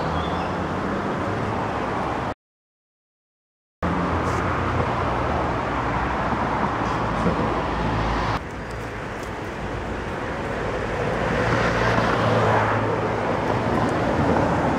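Steady street traffic noise with a low engine hum, cut by about a second and a half of dead silence a little over two seconds in, dropping a little at about eight seconds and then swelling again.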